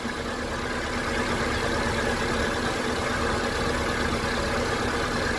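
2005 Honda CR-V's four-cylinder engine idling steadily, running smoothly with a newly installed alternator that is charging.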